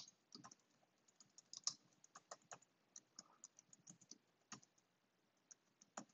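Faint typing on a computer keyboard: quick, irregular keystrokes that thin out to a few single taps after about four and a half seconds.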